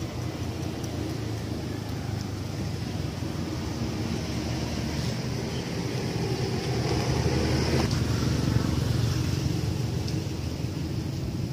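A motor vehicle's engine running steadily nearby, growing louder about seven seconds in and then easing off, with a single sharp tick near eight seconds.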